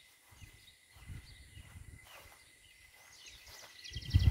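Faint outdoor ambience with scattered bird chirps and a short, rapid bird trill near the end, over intermittent low rumbling on the microphone that swells in the last half second.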